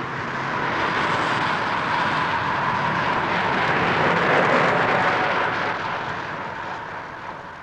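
A pack of road-racing bicycles rushing past close by on a descent: a broad rush of tyres and wind that swells to its loudest about halfway through, then fades.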